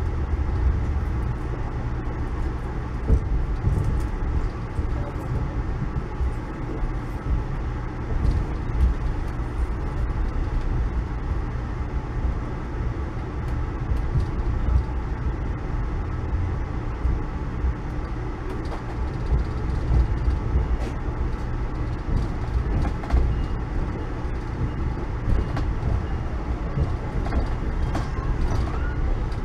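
Amtrak Northeast Regional passenger car running on the rails, heard from inside the coach: a steady low rumble with scattered clicks of the wheels over rail joints and switches, and a faint squeal near the end.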